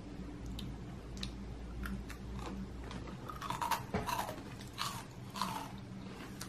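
A person biting and chewing a crunchy snack close to the microphone: a run of short, sharp crunches, denser and louder in the second half.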